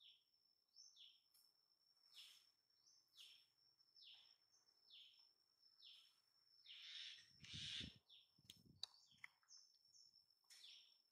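Faint bird calls: short falling chirps repeated about once a second, over a thin, steady, high-pitched whine. A louder noisy rush with a low rumble comes about seven to eight seconds in.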